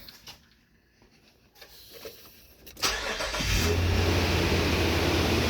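2004 Nissan Xterra engine starting about three seconds in, catching quickly and settling into a steady idle. It sounds good from cold; the misfire only comes once the engine warms.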